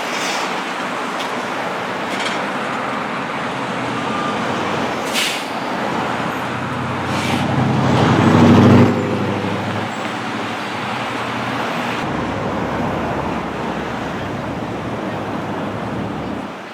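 Road traffic passing: a steady wash of tyre and engine noise, with one heavier vehicle's engine swelling to its loudest about eight to nine seconds in and then falling away.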